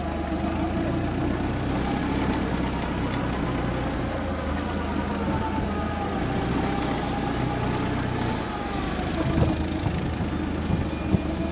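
Forklift engine running steadily as the forklift drives, heard from on board, with a faint wavering whine above the engine note. Two or three sharp knocks come near the end.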